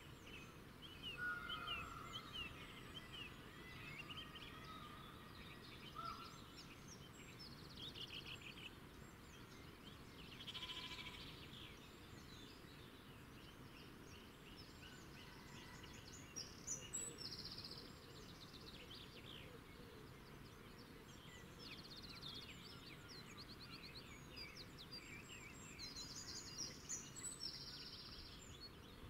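Faint countryside ambience: small birds chirping and twittering, with short buzzy trills, and a faint sheep bleat about ten seconds in.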